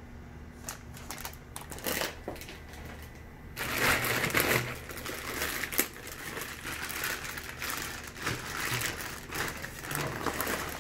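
Plastic bags crinkling and rustling as they are handled: a few light crackles at first, then, from about three and a half seconds in, louder continuous crinkling as the clear plastic liner of a styrofoam fish-shipping box is pulled open.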